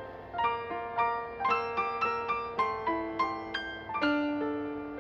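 Background piano music: a melody of single struck notes over lower held notes.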